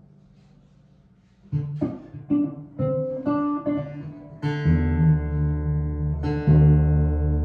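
1955 Gibson ES-295 hollowbody electric guitar with P-90 pickups. After about a second and a half of quiet, a quick run of single picked notes, then full chords ringing out from a little past halfway, with another chord struck near the end.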